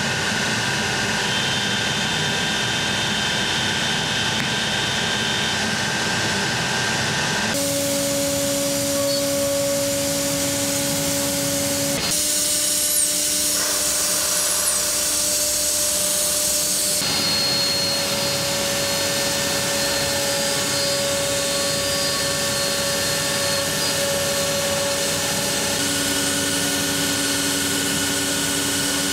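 CNC router spindle running and cutting a wood panel: a steady machine whine over a rushing noise, its pitch shifting abruptly several times as the cut goes on.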